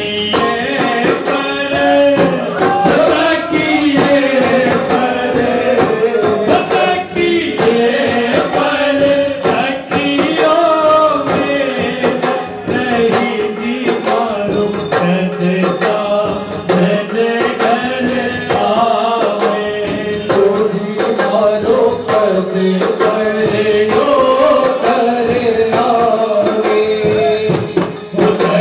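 Phagan rasiya folk song: voices singing in a chant-like melody over a steady beat of jingling hand percussion.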